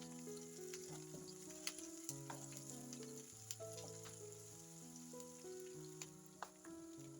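Food sizzling in a hot pan, with a few sharp clicks from stirring, under soft instrumental background music that plays a stepped melody over bass notes.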